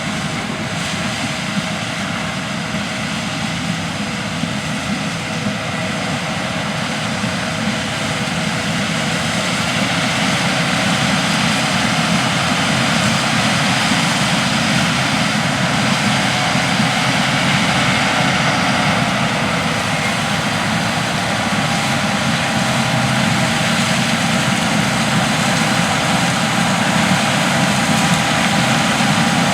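John Deere S670 combine harvesting corn: a steady machinery and engine drone with a faint steady whine over it. It grows slightly louder about a third of the way through.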